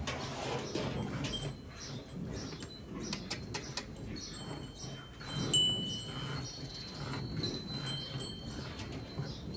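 Cow being milked by hand into a steel pail: rhythmic squirts of milk into the froth, about two a second. Thin high ringing tones sound over them now and then.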